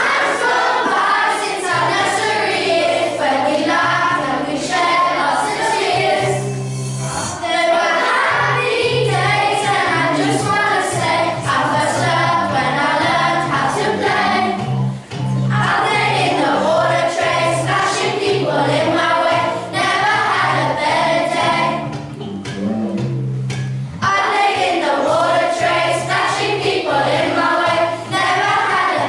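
A group of children singing a song together, in phrases with short breaks near the middle, over an instrumental accompaniment with steady held bass notes.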